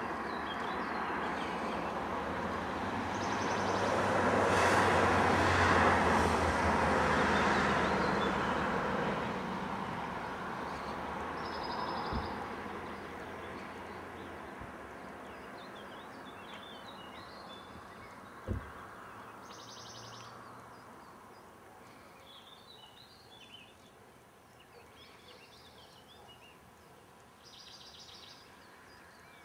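A road vehicle passes by: its engine hum and road noise swell over the first few seconds and fade slowly over the next dozen or so. Birds chirp in short bursts in the quieter second half, with a couple of sharp clicks.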